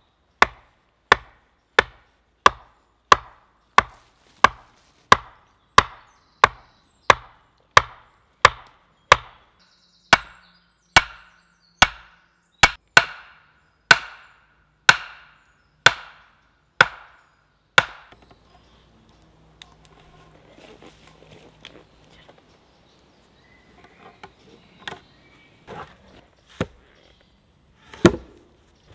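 An axe strikes the top of an upright wooden post again and again in a steady rhythm, about three blows every two seconds, driving the post into the ground. The blows stop about 18 seconds in. After that come rustling and a few scattered wooden knocks, then a heavy thump near the end as a log round is set down.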